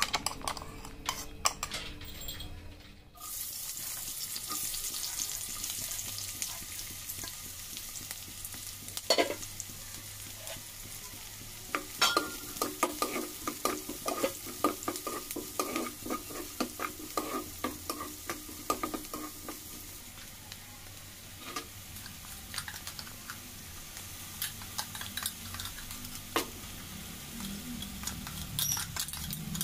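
Chopped onions and green chillies sizzling in hot oil in a wok, stirred with a steel ladle that scrapes and clicks against the pan. The sizzling starts about three seconds in.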